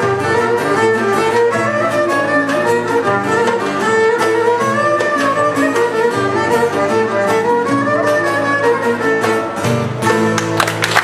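Greek folk ensemble playing a Rhodian syrtos dance tune: violin carrying the melody over oud and laouto, with a goblet drum keeping a steady beat. Near the end, applause breaks in as the tune finishes.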